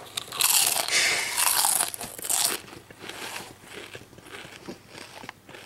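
A person biting into and crunching a mouthful of crunchy food, with crinkling and crackling that is loudest in the first two and a half seconds, then fainter crunching as the chewing goes on.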